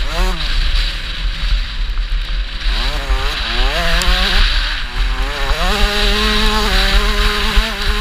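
KTM 65 two-stroke motocross bike's engine revving up and down through the gears at speed, with wind rushing over the camera microphone. The revs fall away about a second in, climb again in short steps from around three seconds in, and hold fairly steady over the last couple of seconds.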